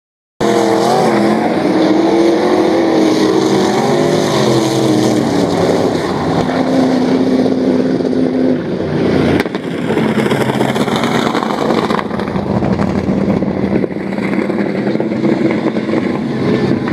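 Super Rods race car engines running hard on a dirt oval, their pitch rising and falling as they rev and come off the throttle. The sound starts abruptly about half a second in and changes suddenly about nine seconds in.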